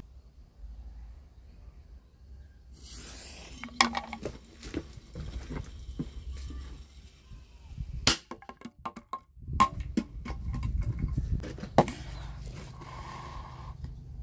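A small firecracker going off in a plastic water bottle: a short hiss, then a run of sharp, irregular pops and cracks, with several louder bangs spread through the middle and later part.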